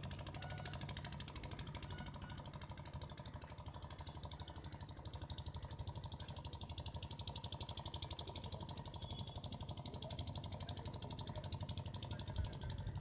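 Small open boat's outboard motor running with a fast, even chugging, a little louder around the middle.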